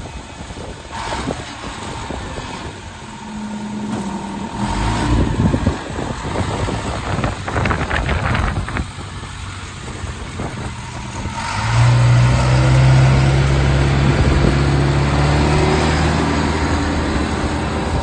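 Case 580G backhoe loader's diesel engine running. About two-thirds of the way in it rises sharply to a louder, steady, higher-revving note and holds there.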